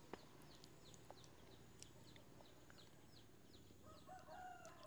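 Near silence: faint yard ambience with a bird giving repeated high, falling peeps, about three a second, and a faint short call near the end.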